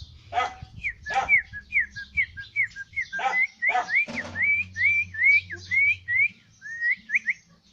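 A person whistling imitations of a bird's call: a string of short notes that bend up and down, about two a second. A dog barks four times in the first half, louder than the whistling.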